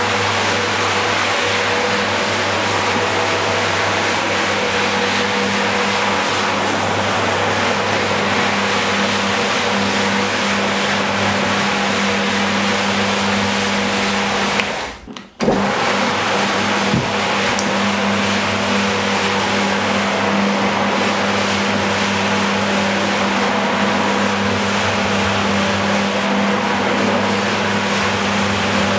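Rotary floor scrubber running steadily, its electric motor humming as the brush scrubs a soaked, foamy rug. The sound drops out briefly about halfway through, then resumes as before.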